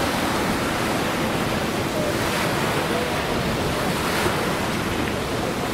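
Small waves washing steadily onto a sandy shore, with wind buffeting the microphone.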